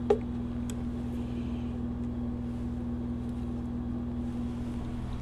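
A steady low electrical hum of workshop equipment, with one sharp click just after the start and a faint tick under a second in.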